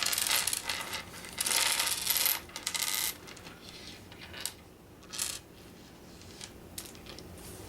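Small wooden game pieces clattering as they are poured out of a bag onto a table for about three seconds, then a few single clicks as pieces are moved about.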